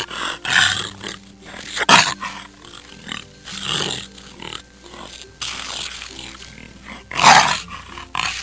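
A large animal giving a series of harsh, rough roaring cries, about five in all, over faint steady background music.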